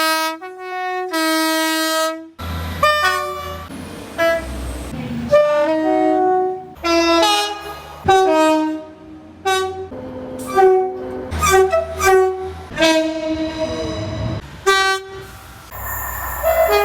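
Train horns sounding in a rapid run of short blasts, each blast stepping between two or more notes, over the low rumble of trains.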